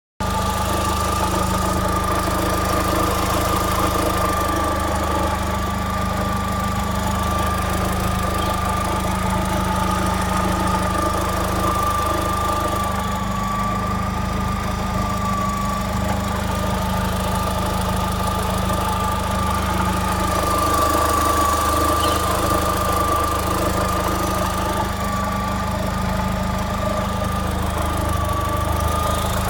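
Vauxhall Astra Mk4 1.6 16v petrol engine running steadily at a constant speed, with a steady whine over the engine hum: the weird noise whose cause the owner cannot place.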